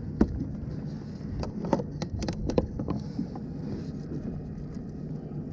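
Metal clicks and clinks of fishing tools on a ring (a fish grip and pliers) being handled by gloved hands, scattered through the first three seconds or so, over a steady low hum.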